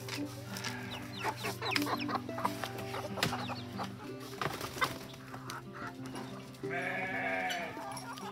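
Chickens clucking over background music with steady held notes, with one longer animal call, rising then falling, about seven seconds in.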